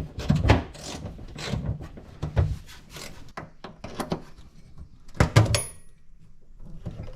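Irregular metallic clunks, knocks and scrapes from a Jeep Wrangler TJ's transfer-case shift linkage and its mounting bolts as the mechanism is unbolted and worked loose. The loudest clunk comes about five seconds in, with a brief metallic ring.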